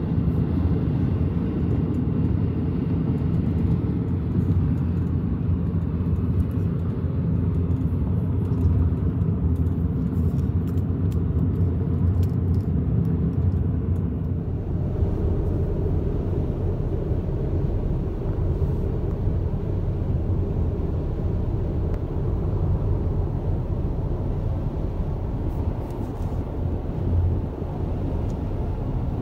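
Steady low rumble of a car driving at speed, heard from inside the cabin: engine, tyre and road noise.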